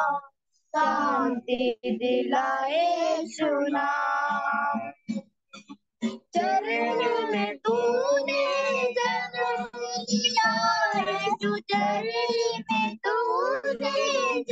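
A high voice singing a slow devotional song over a video call, with long held notes. The sound keeps cutting out for moments, the longest gaps near the start and about halfway through.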